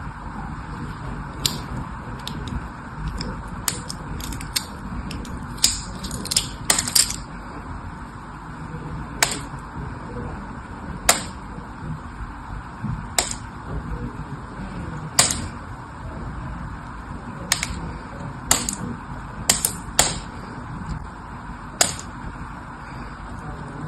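Irregular sharp clicks and taps, a dozen or more spaced a second or two apart with a quick cluster about six seconds in, over a steady background hiss.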